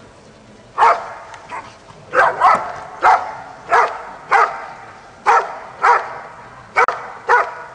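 Dog's hold-and-bark at the blind in IPO protection work, barking steadily at the cornered helper. About ten loud barks come in a steady rhythm, starting about a second in.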